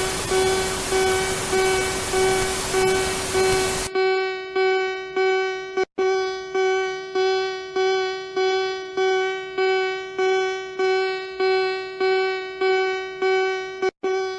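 Emergency alert alarm beeping at about two beeps a second, each beep a buzzy, horn-like tone that starts sharply and fades. Loud static hiss covers the first four seconds.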